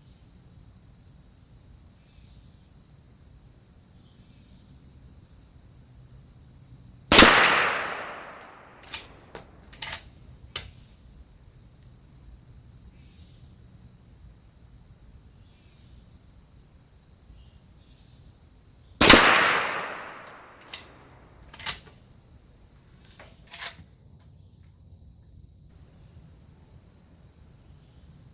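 Two rifle shots from a Winchester Model 1894 lever-action in .30 WCF (.30-30), about twelve seconds apart, each with a long echoing tail. A few sharp metallic clicks follow each shot as the lever is worked to eject and chamber the next round. Steady insect chirring runs underneath.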